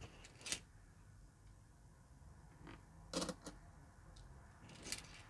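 Mostly quiet, with a few short light clicks of euro coins clinking in a palmful of coins: one about half a second in, a quick pair a little after three seconds, and a faint one near the end.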